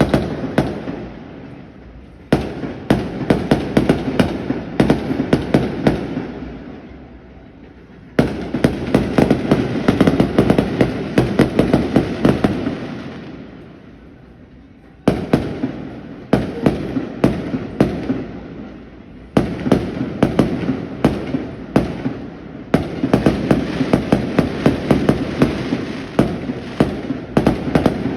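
Fireworks display: volleys of rapid sharp bangs, several a second, with a new volley starting every few seconds. Between volleys a low reverberation fades away.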